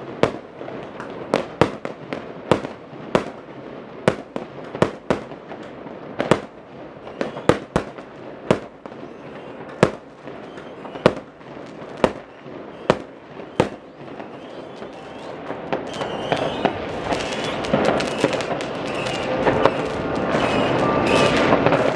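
Fireworks and firecrackers exploding across a city at New Year's: a run of sharp, separate bangs, several a second at times. After about 14 seconds the bangs thin out and a steadier, louder wash of noise builds toward the end.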